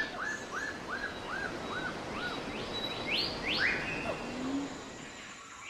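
A bird singing over steady outdoor background noise: a run of about six short, evenly spaced chirps, then a few higher rising notes around the middle.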